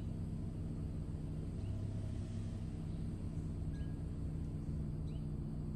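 A car engine idling with a steady low hum, with short bird chirps every couple of seconds.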